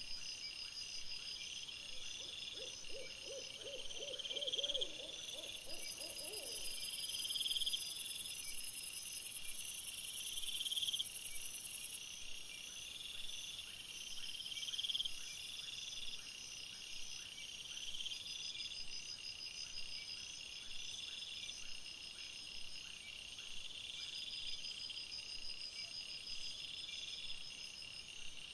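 Night insects such as crickets chirping in steady repeating trills and pulses, with a loud high buzz from about five to twelve seconds in. About two seconds in, a short run of roughly ten quick low pulsed notes, rising slightly in pitch, lasts for about four seconds.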